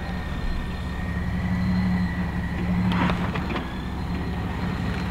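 An off-road vehicle's engine running steadily at a constant speed, with a few light clicks or knocks about three seconds in.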